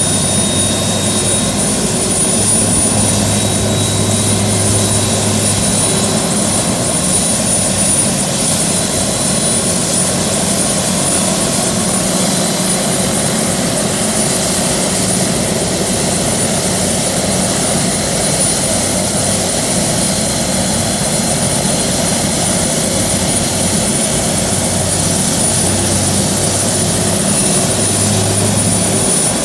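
Turbine helicopter running on the ground: a loud, steady high-pitched turbine whine over the rotor and engine noise.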